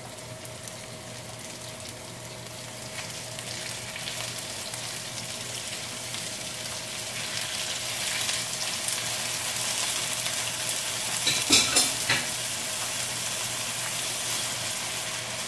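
Frozen fish fillets sizzling in hot olive oil in a nonstick frying pan as they are laid in over sautéed garlic and onion. The sizzle grows louder over the first several seconds, with a few sharp knocks against the pan about twelve seconds in.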